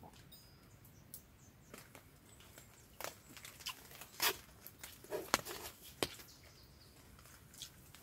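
Faint scattered clicks and taps, with a handful of sharper ones bunched in the middle few seconds.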